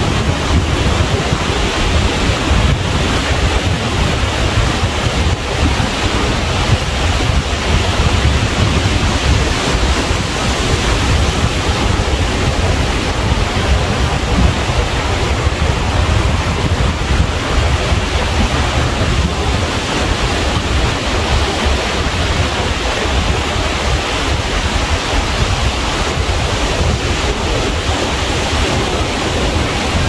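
Ocean surf washing against the shore in a steady rush, with wind buffeting the microphone and adding a low rumble.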